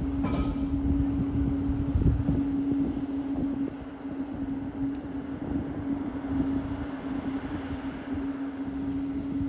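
Steady mechanical hum holding one constant pitch over a low rumble, with a brief sharp click about a third of a second in.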